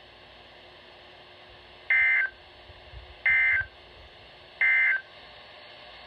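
Emergency Alert System end-of-message code: three short, identical bursts of warbling two-tone digital data, about a second and a half apart, signalling the end of the alert broadcast.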